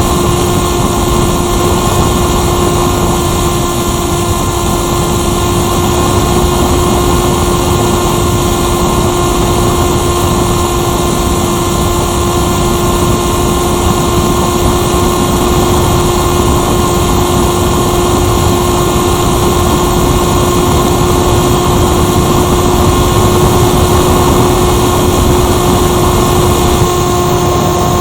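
RC motor glider's motor and propeller running at a steady speed, with a constant whine, heard from the onboard camera along with wind rushing past the airframe.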